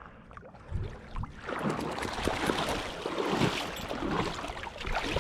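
Water sloshing and splashing, starting about a second and a half in and running on unevenly.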